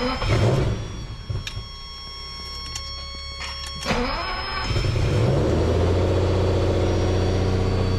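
1989 Lamborghini Countach 25th Anniversary's V12 being cranked over for about four seconds after an oil change, catching just before the four-second mark, revving briefly and settling into a steady idle. A steady high warning-buzzer tone sounds during the cranking.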